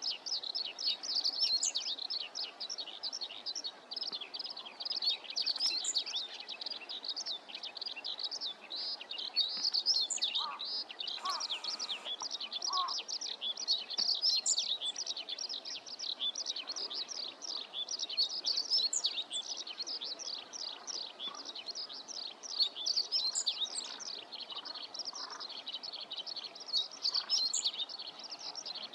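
Small birds chirping continuously in a dense run of quick, high notes, with a few lower calls about eleven to thirteen seconds in.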